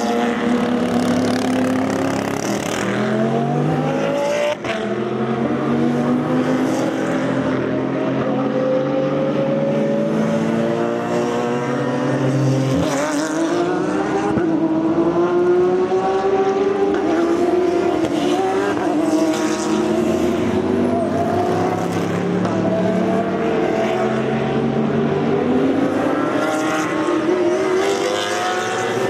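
Race car engines with open exhausts running hard, several cars overlapping as they pass, each engine's pitch climbing through the gears and falling away.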